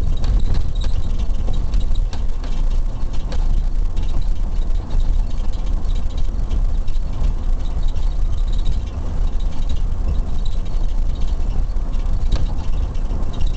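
Steady low rumble of a police car's engine and running gear, heard from inside the vehicle's cabin.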